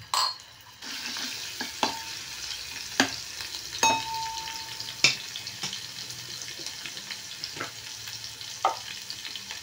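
Chopped garlic sizzling in hot oil in a metal pot, the sizzle rising sharply about a second in. A metal ladle stirring knocks against the pot several times, and one knock rings for about a second.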